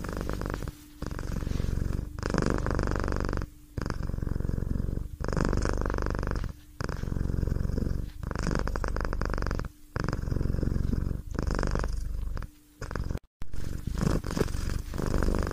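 Domestic cat purring in long, even cycles of about a second and a half with short breaks between breaths. It cuts out for a moment near the end.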